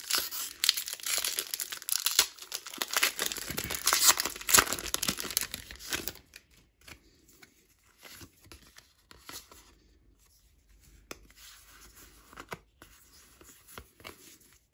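A foil Pokémon TCG booster pack wrapper being torn open: loud tearing and crinkling for about six seconds, then quieter scattered crinkles and clicks.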